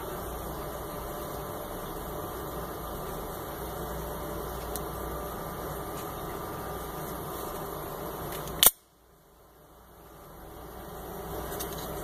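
Steady background hiss, then about two-thirds of the way through a single sharp metallic snap as the spring-driven blade of a double-action out-the-front knife fires out of its handle. The hiss drops away right after the snap and slowly returns.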